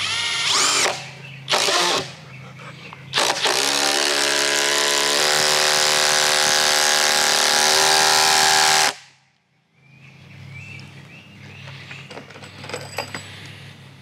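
Hercules cordless driver sinking a long self-drilling GRK structural screw into an oak slab. It starts with a few short trigger pulls that spin up and stop, then one long run of about five seconds under load that cuts off sharply about nine seconds in.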